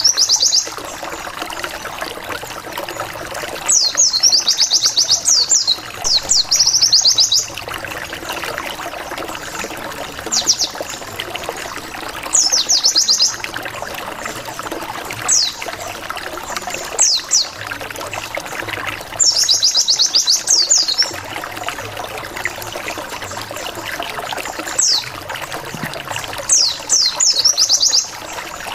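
White-eye (pleci) song: bursts of rapid, high, falling whistled notes, the fast 'wit wit wit' lure song, repeated about ten times, some single notes and some runs of a second or two. Underneath is a steady trickle of running water.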